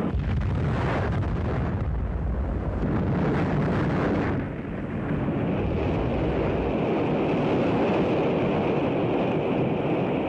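An Atlas-Centaur rocket exploding in flight: a long, continuous low rumble of noise with a brief dip about four seconds in.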